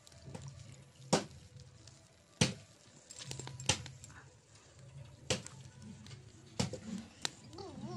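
Wood fire crackling under a cooking pan: six sharp, separate pops at uneven gaps over a faint low hum.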